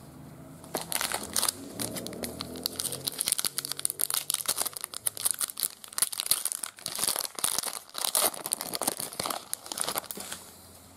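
Foil trading-card pack wrapper being torn open and crinkled by hand, a dense run of sharp crackles that starts about a second in and stops near the end.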